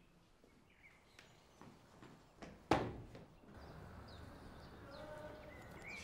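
A few faint taps, then a single sharp loud knock a bit under three seconds in. After it comes a steady outdoor background with short bird-like chirps.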